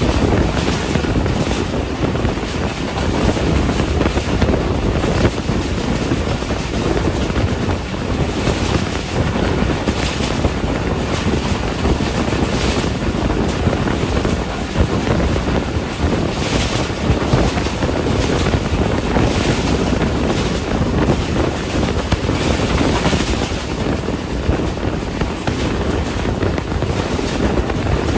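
Passenger train running fast on the rails, heard from an open coach window: a loud, steady rush of wind on the microphone over the rumble of the coach wheels on the track.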